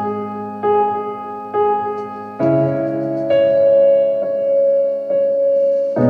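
Slow piano music: sustained chords struck one after another, a new one about every second, with longer held chords in the second half.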